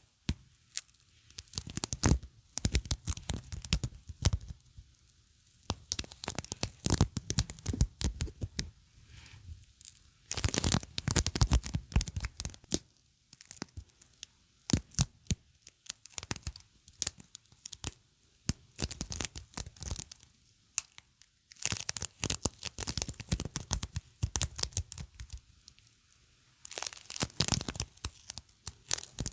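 Something sticky being pressed and peeled apart close to the microphone, giving a crackling, tearing sound in short irregular bursts with brief pauses between them.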